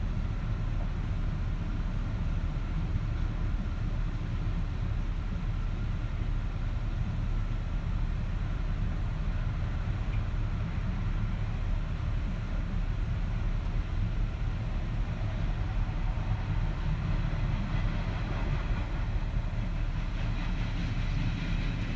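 Union Pacific manifest freight train rolling past, a steady low rumble.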